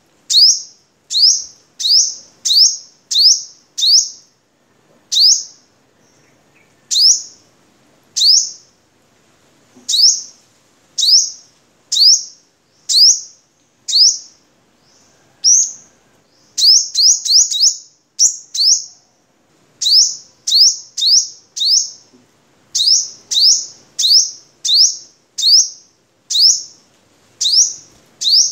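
Male sunbird calling: a string of sharp, very high chips, each a quick downward sweep, about one a second. Midway there is a pause, then a fast run of several notes.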